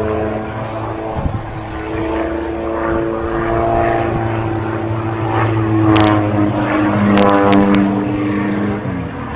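Small propeller aerobatic plane's piston engine running, its note shifting in pitch as it manoeuvres. A few sharp clicks come about two-thirds of the way through.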